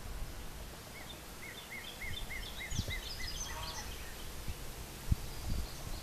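A songbird singing a quick run of about eight repeated notes, roughly four a second, then a burst of higher chattering notes. A couple of soft knocks from wooden hive frames being handled.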